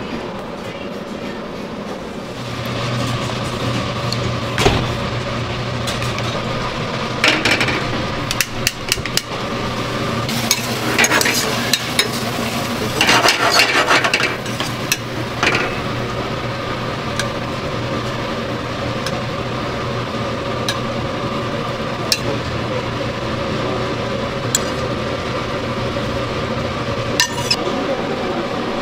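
A metal spoon scraping and clinking against a stainless steel frying pan as meatballs are basted in tomato sauce, in several short bursts in the first half, then only scattered light clicks. A steady low kitchen hum sets in a couple of seconds in and runs underneath.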